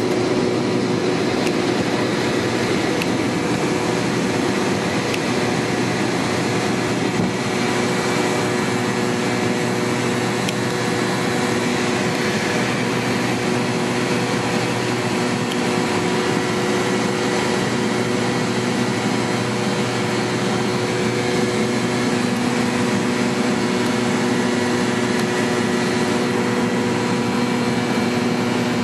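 Cabin noise of a McDonnell Douglas MD-88 climbing out after takeoff: its rear-mounted Pratt & Whitney JT8D turbofans run at climb power under a steady rush of airflow. Several constant tones run through the noise, and a lower hum comes and goes.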